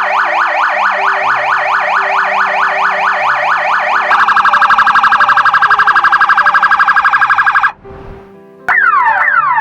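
Emergency siren sound effects played one after another. First comes a rapid yelp sweeping up and down about five times a second. About four seconds in it switches to a faster, higher pulsing tone, and after a short break near the end it gives quick falling sweeps.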